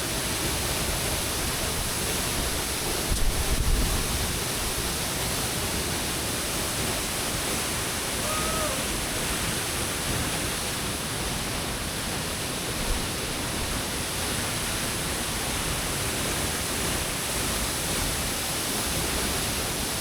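Steady rushing water of a waterfall about 50 feet high, falling without a break, with a brief low buffet on the microphone about three seconds in.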